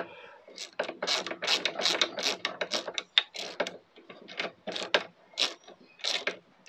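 Hand ratchet clicking as a nut is wound down in quick repeated strokes.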